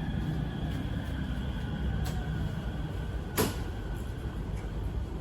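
Steady low hum inside a Bangkok MRT Purple Line train at a station stop, with a light click about two seconds in and a sharper, louder click about three and a half seconds in.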